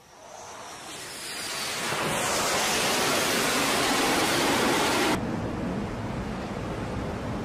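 Jet engine roar on a carrier flight deck, building over about two seconds to a loud steady rush with a faint high whine at its start, then cutting off suddenly about five seconds in. A quieter, steady rush of wind and sea follows.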